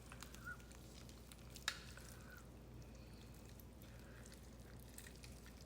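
Faint, wet sounds of a rotisserie chicken being pulled apart by hand, with one sharp click about one and a half seconds in, over a low steady hum.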